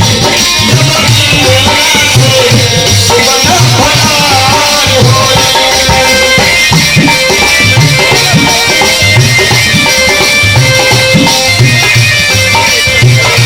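Loud instrumental Bhojpuri dance music with a heavy pulsing bass beat and tabla-like drums under a held melody.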